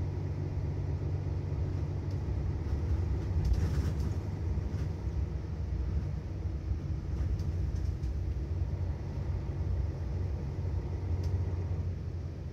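Mercedes-Benz Citaro city bus engine running with a steady low rumble, with a brief rushing noise about three and a half seconds in.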